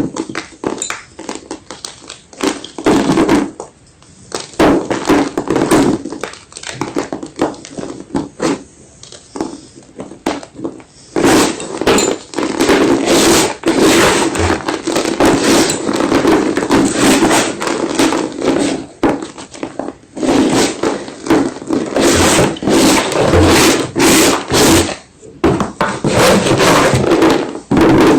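White gym chalk being crunched and crushed, close to the microphone: a dense, irregular run of crumbly crackles and snaps, with a few short pauses.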